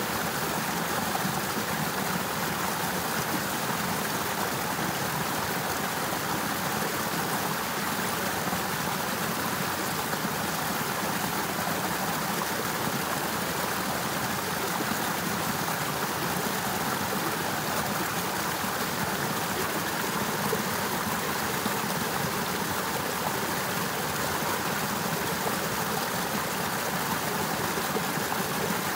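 Partly frozen river running steadily, an even rush of flowing water.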